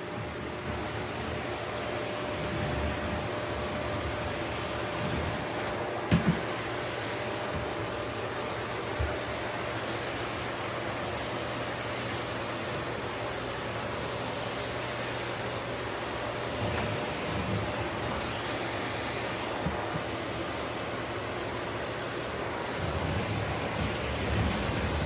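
Vacuum cleaner running steadily with a constant whine, with a couple of short knocks about six and nine seconds in.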